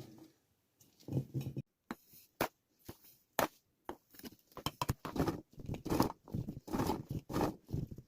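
Small green pine cones dropped into a glass jar: an irregular clatter of light knocks, sparse at first and growing busier about halfway through.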